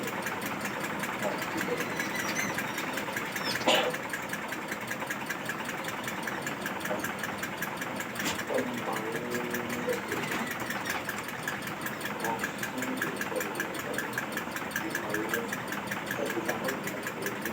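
A small motor runs steadily with a fine, rapid pulse, and there is a single sharp knock about four seconds in.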